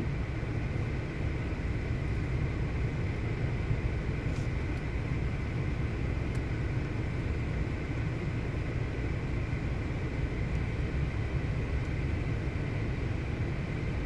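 Steady low rumble inside a car, with a faint steady high whine over it.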